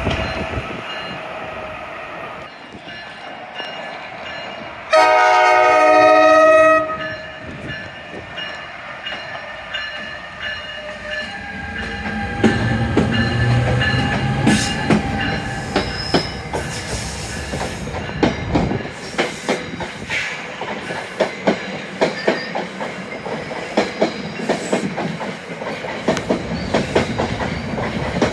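A train horn sounds one loud blast about two seconds long, a chord of several tones. Later an NJ Transit train led by an ALP-46 electric locomotive passes close by, its wheels clicking rhythmically over the rail joints.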